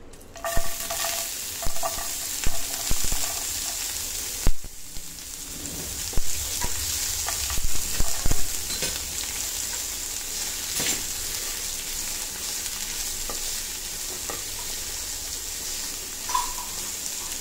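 Chopped onion frying in hot oil in a nonstick pan, with a steady sizzle as it is stirred with a silicone spatula. Sharp knocks and taps come mostly in the first half.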